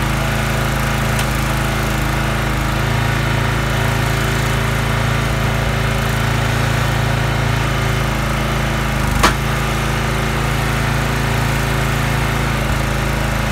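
Huskee log splitter's gas engine running steadily, with one sharp crack about nine seconds in.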